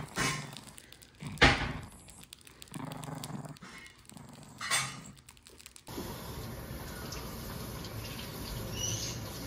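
Small white dog mouthing and tugging at a yellow banana plush toy held out by hand, with a few short sharp sounds, the loudest about a second and a half in and another near five seconds. About six seconds in it gives way to a steady even hiss.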